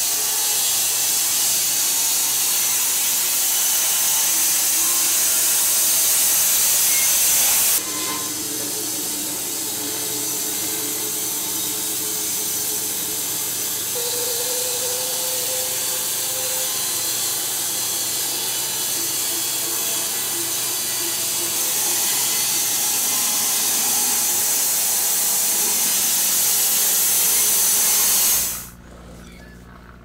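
Bandsaw sawmill blade running through a silver maple log: a steady, loud hiss of the blade cutting wood over the machine's running noise. The sound changes abruptly about eight seconds in and stops suddenly near the end.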